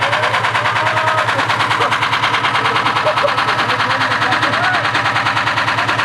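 Front-loading washing machine running, its drum knocking hard in a steady, rapid rhythm of about seven or eight knocks a second.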